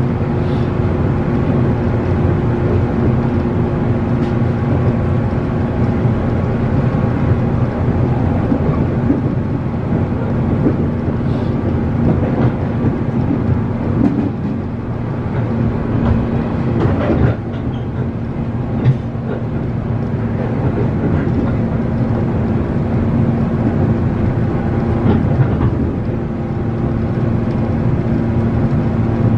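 JR 117 series electric train heard from inside a passenger car while running at speed. Its loud traction motors give a steady two-pitch hum over the low rumble of wheels on rail. The hum fades for a few seconds about halfway through, then returns.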